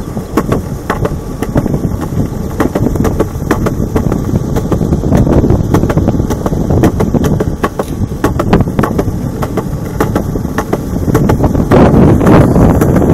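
Wind buffeting the microphone of a moving camera, a loud low rumble, with frequent irregular clicks and knocks over it; it grows louder near the end.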